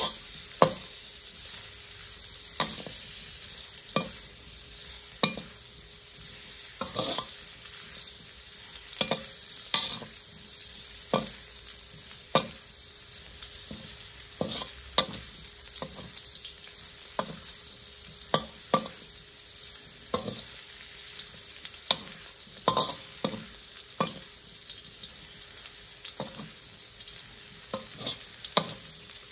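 Diced sausage frying in oil in a metal wok with a steady sizzle, while a metal wok spatula stirs it, scraping and clacking against the pan about once a second.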